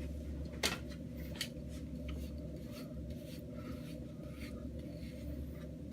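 Hard-bristle wave brush rasping through short, gel-coated hair in scattered, uneven strokes, over a steady low hum.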